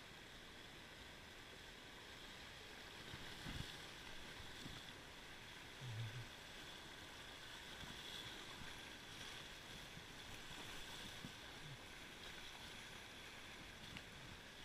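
Faint, steady rush of river water running over shallow rocky riffles. A soft knock comes about three and a half seconds in, and a short low thud around six seconds.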